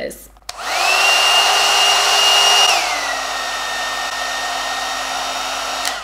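A Wish knockoff of the Revlon One Step brush hair dryer is switched on. Its motor whine rises and holds steady, then a little before halfway drops to a lower, quieter pitch as it goes to the middle setting, which sounds less powerful than low. It cuts off just before the end.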